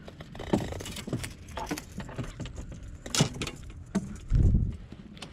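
Handling noise as a hooked redfish is held up on the line and unhooked by hand: a busy run of small clicks, knocks and rattles from the fish, hook and tackle. About four seconds in, a low rubbing thump as a sleeve brushes the camera's microphone.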